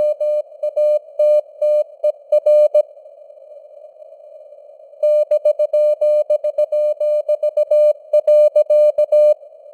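Morse code (CW) keyed at 17 words per minute as a single steady tone, over a narrow hiss of simulated radio band noise. The keying breaks off for about two seconds near the middle, leaving only the hiss, then resumes and stops shortly before the end.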